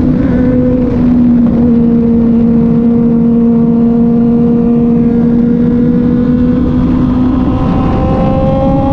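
Kove 450RR motorcycle's parallel-twin engine running at steady cruising revs under way, over constant wind and road noise. The revs ease slightly about a second in, then climb a little near the end.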